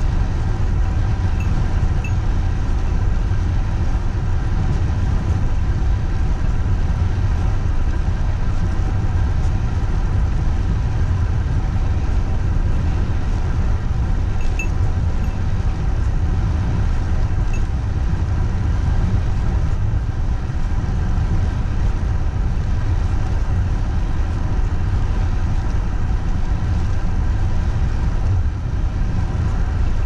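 Wind rushing over the microphone of a handlebar-mounted camera on a road bike descending fast: a loud, steady, buffeting rumble, with a faint steady hum from the bike's rolling above it.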